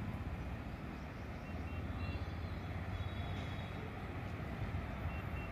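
Steady low outdoor rumble with a few faint, short high chirps.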